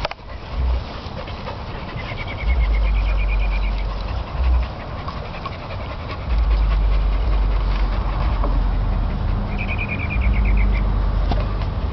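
Dogs panting and moving about at play, with a low rumble coming and going underneath and a short run of rapid high chirps twice.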